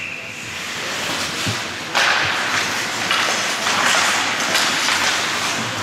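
Ice hockey play in a rink: a dense hiss of skates and crowd noise that swells suddenly about two seconds in and holds, with a few faint knocks from sticks and puck.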